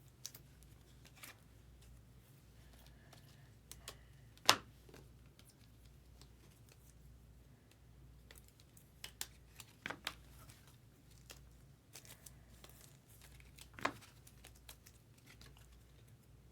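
Quiet handling of trading card packaging and cards: scattered small clicks, taps and crinkles, with a sharp click about four and a half seconds in and two more near ten and fourteen seconds.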